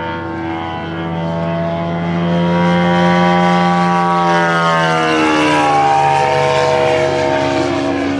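The 450cc gasoline engine and propeller of a 12-foot-wingspan radio-controlled P-47 model in a flyby: a steady engine note that grows louder, then drops in pitch about five seconds in as the plane passes.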